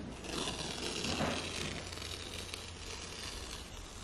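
Cardboard laptop box and its packaging rustling and sliding as the box is opened, loudest in the first half.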